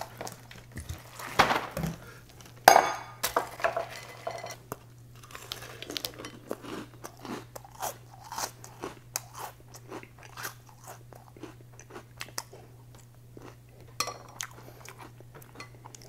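A person chewing a mouthful of crunchy Oatmeal Creme Pies cereal in milk, a long run of small crisp crunches. There are a few louder knocks in the first three seconds, and a steady low hum underneath.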